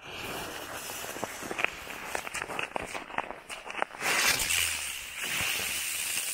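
Small winged ground firework hissing as its fuse catches and it sprays sparks, with scattered sharp crackles. About four seconds in the hiss turns louder and brighter.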